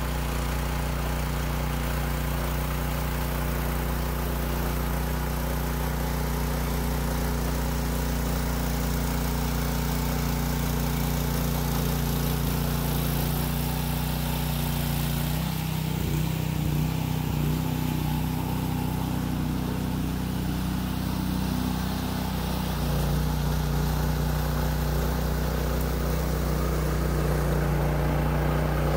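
Rear-tine rototiller's small gasoline engine running steadily while tilling sand into the soil; about halfway through, its note wavers and shifts for several seconds before settling again.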